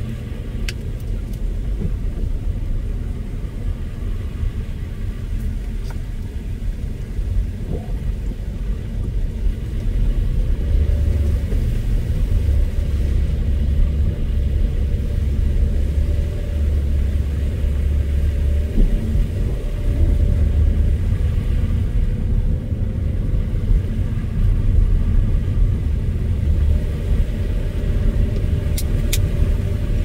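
A car driving on a snowy road: a steady low rumble of tyres and engine that grows heavier about ten seconds in, with a faint steady hum.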